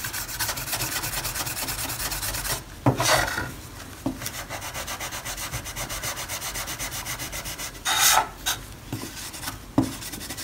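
Hand-held abrasive block scrubbed rapidly back and forth along a rusty steel knife blade, several strokes a second, rubbing off rust. The strokes pause briefly about 2.5 s in, resume more softly, and a short louder scrape comes near 8 s.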